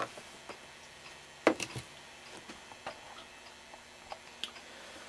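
Scattered clicks and light knocks of a screwdriver and a metal radio sub-chassis being handled on a wooden workbench. There is a sharp click at the start, another about a second and a half in with a few smaller ones after it, and faint ticks between.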